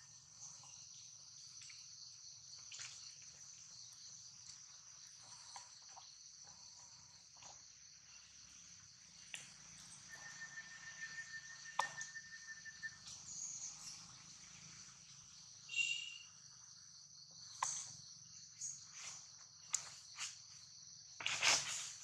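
Steady high-pitched chorus of insects chirring, with a thin held tone for a couple of seconds around the middle and scattered small clicks. A few louder rustles come near the end.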